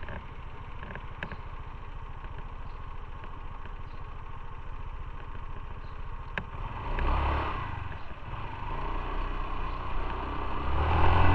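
Motorcycle engine idling with an even low pulse. About seven seconds in a brief louder rush of traffic noise passes, and the noise rises again near the end.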